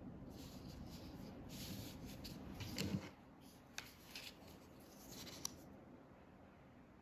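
Pen drawing on paper: a series of short, faint scratchy strokes, with a few sharp clicks in between. The loudest click, about three seconds in, comes with a soft knock. The strokes stop about a second before the end.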